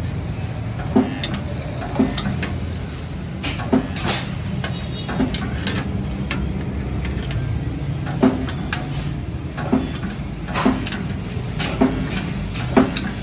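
Spot welder humming steadily, with sharp short snaps roughly once a second as welds are made along the rim of a stainless-steel sheet cylinder.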